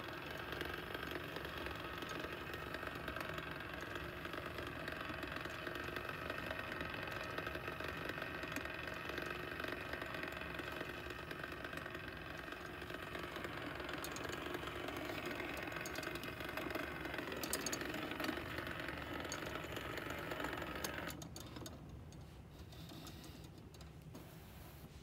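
Battery-driven mechanism in the base of a Form S kinetic sculpture running with a steady mechanical whir and rattle as it swings the metal rods. The whir drops away sharply near the end.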